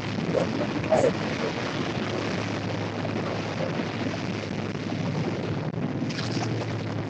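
Wind on the microphone over the steady low hum of a boat's engine on the open sea.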